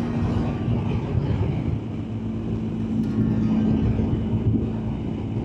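BMW R1250GS Adventure's boxer-twin engine running steadily under way, a constant hum over low rumble, mixed with wind and road noise.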